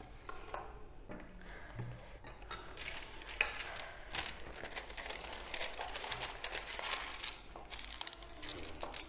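Butter paper crinkling and rustling as it is handled and pressed into a square aluminium cake tin, a dense crackle of small ticks that starts a couple of seconds in. It is preceded by a soft scraping of a silicone pastry brush greasing the tin.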